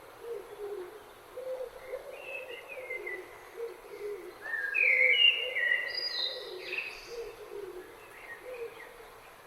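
Morning birdsong: low repeated calls run underneath, while a second bird sings higher whistled phrases that are loudest around the middle and thin out near the end.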